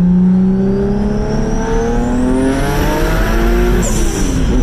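Single-turbo 1997 Mitsubishi 3000GT VR-4's 3.0 V6 pulling hard under acceleration, the revs climbing steadily with a high whine rising alongside. About four seconds in comes a brief hiss, and the revs drop and start climbing again: an upshift.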